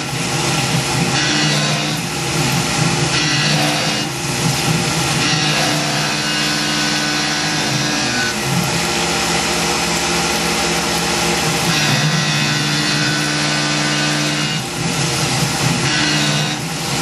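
Tormach PCNC 1100 CNC mill cutting a pocket with an end mill on a trochoidal toolpath under flood coolant: a steady spindle and motor hum with the hiss of cutting and coolant spray. The tone steps down about eight seconds in and back up about four seconds later as the cutter moves through the path.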